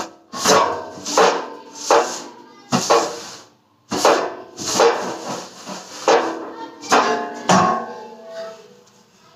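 Background music with a regular beat, about one hit every 0.7 seconds, fading out near the end.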